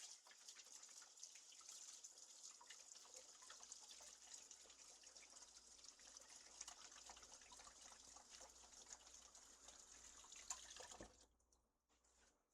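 Faint tap water running into a sink while hands are washed, with small splashes, shut off about 11 seconds in.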